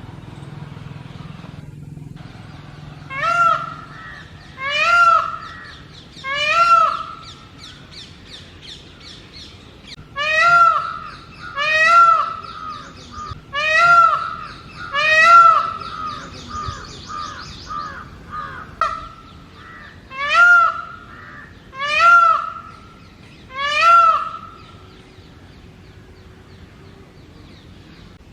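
Male Indian peafowl giving its loud mating-season call. There are ten loud calls, each rising then falling in pitch, in three bouts of three, four and three, about a second and a half apart, with a quick run of shorter notes after the seventh call.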